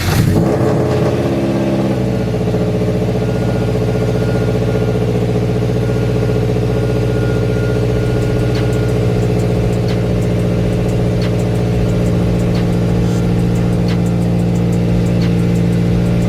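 Supercharged Scion FR-S's flat-four boxer engine idling steadily just after a jump start from a long sit; the idle settles slightly lower about two seconds in and then holds.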